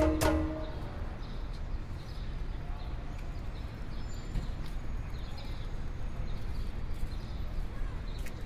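Plucked background music stops about half a second in. After that comes a quieter, steady low rumble with faint short chirps and scattered clicks.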